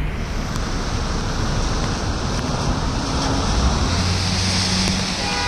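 Steady rushing hiss of a bicycle ride on a wet road, with wind on the microphone and the spray hiss of wet tyres. A low hum of motor traffic comes up about four seconds in.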